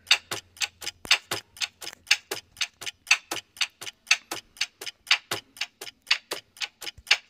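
Clock-ticking sound effect for a quiz countdown timer: a steady run of sharp ticks, about four a second, marking the time left to answer.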